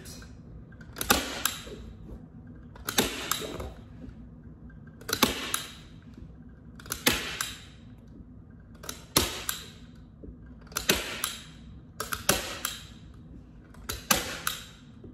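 Hand staple gun snapping staples through shower-curtain fabric into the wooden frame of a canvas: eight sharp snaps, about one every two seconds.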